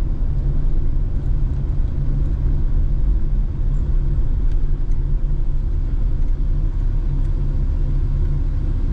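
Vehicle driving, a loud steady low rumble of engine and road noise.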